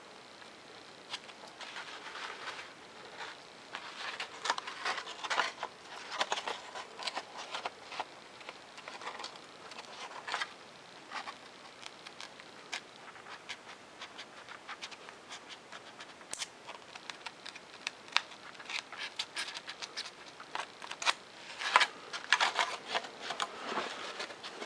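Hobby knife blade slicing through a 3mm Depron foam sheet in short strokes, an irregular dry scratchy crackle, while cutting 45-degree bevels. The strokes come thickest and loudest in a burst near the end.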